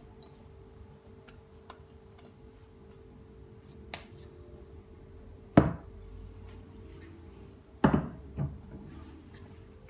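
Glass mixing bowl knocking sharply a few times as thick chocolate tahini halva mixture is tipped out of it into a small plastic container: a light tap, then a loud knock about halfway through, then two more knocks close together near the end.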